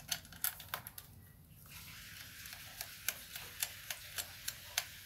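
Light metal clicks and taps as small bolts and rubber shock mounts are handled and fitted to a small engine's mounting bracket, then a run of evenly spaced light ticks, about three a second, over a faint steady hiss.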